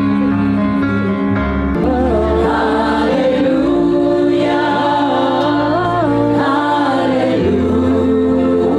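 Music with singing: a held chord at first, then about two seconds in a singing voice enters, carrying a melody with vibrato over sustained low notes.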